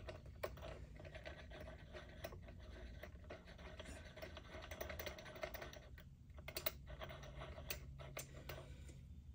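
Faint, scattered light clicks and ticks as a small metal screw clamp is tightened by hand on a bass guitar's body, clamping a glued crack repair, over a faint steady hum.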